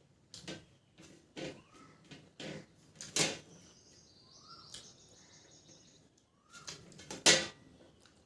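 Eating sounds of a person eating rice and curry: a string of short wet smacks and chewing noises, the loudest about three seconds in and again near the end.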